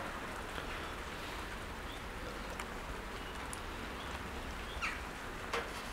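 Tomato sauce simmering in a cast-iron Dutch oven: a steady faint hiss with a few scattered soft pops.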